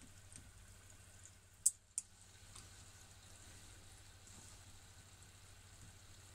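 Beef croquette deep-frying in oil in an electric deep fryer's wire basket: faint, steady sizzling and bubbling with small crackles, and two sharp pops a little under two seconds in.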